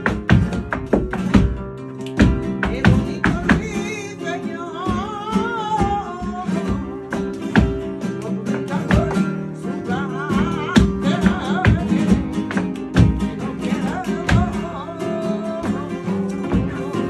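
Live flamenco: acoustic flamenco guitars strumming under rapid, sharp strikes from the dancer's heeled shoes on the floor. A singer's wavering, ornamented voice enters about four seconds in and again around ten seconds in.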